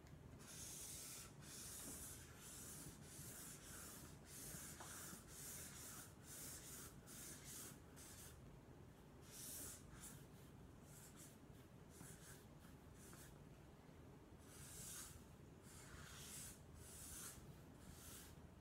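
Sharpie marker being drawn across flip-chart paper in quick successive strokes: a faint run of separate swishing strokes, one or two a second, as feather lines are laid down.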